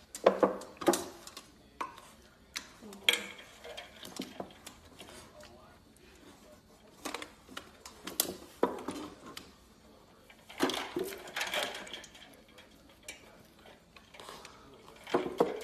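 Ice cubes clattering and clinking against a stainless steel dog bowl as a puppy noses into it, in irregular bursts that are busiest about ten to twelve seconds in.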